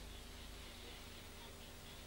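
Faint steady hiss with a low hum underneath, with no distinct sound standing out.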